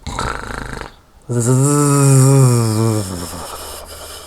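Cartoon snore: a noisy in-breath about a second long, then a loud buzzing out-breath that wavers in pitch and fades away. It is a snore that buzzes like a bumblebee.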